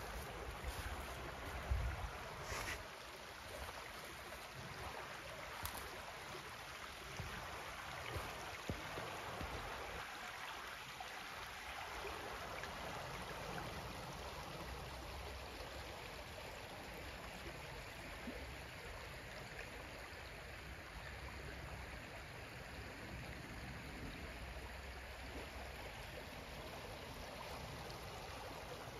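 Shallow rocky creek flowing with a steady rush of water. A few low thumps on the microphone come in the first couple of seconds.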